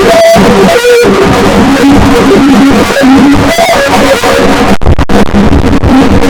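Heavily effects-processed sneezing audio, run through a vocoder and stacked distortion effects so that it comes out as a loud, dense, music-like drone of pitched tones that step from note to note. It cuts out briefly a couple of times about five seconds in.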